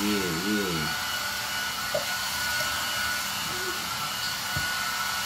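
Steady whirring fan noise with a constant high whine, like a small appliance's cooling fan. A short voiced sound with a sliding pitch comes in the first second.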